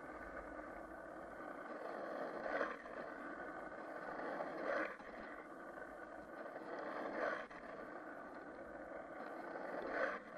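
Skateboard wheels rolling over rough asphalt, a steady rumble, broken about every two and a half seconds by a short louder scrape as the skater's foot pushes off the road, four times.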